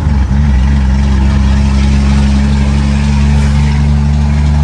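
Scania 124's straight-piped diesel engine running under way, heard from inside the cab: the revs rise and dip briefly right at the start, then hold at a steady, low, even drone.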